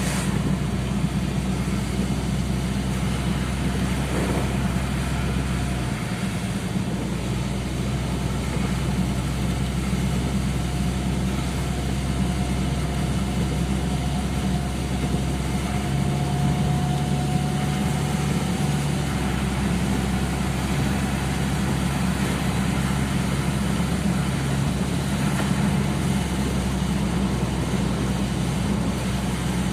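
Steady low engine hum, like a vehicle idling, under an even hiss; a faint thin tone drifts slightly in pitch midway through.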